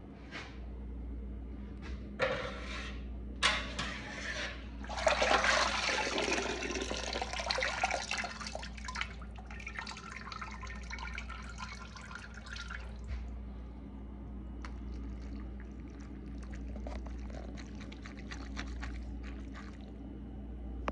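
Boiled chitlins being lifted out of their cooking liquid with a wire skimmer, broth splashing, pouring and dripping back into the pot, loudest about five to nine seconds in and thinning to drips near the end. A steady low hum runs underneath.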